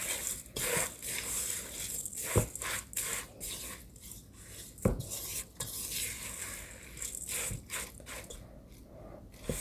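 Silicone spatula folding and stirring a wet crab-meat and cracker-crumb mixture in a stainless steel bowl: soft, irregular squishing and scraping strokes, with two dull knocks against the bowl.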